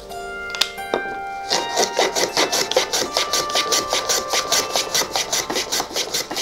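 A wooden piece rubbed back and forth by hand on a workbench: a fast, even scraping, about four strokes a second, starting about a second and a half in. Before it come a couple of light wooden knocks, and soft background music runs under it all.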